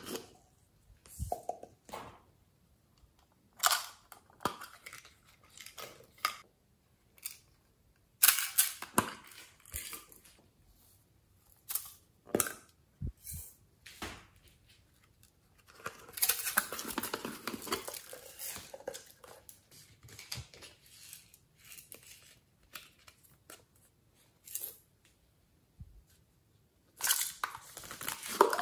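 Plastic toy containers being handled and opened: scattered clicks, taps and short rustles as sequins and glitter are shaken out of them onto slime, with a longer rustling spell about halfway through.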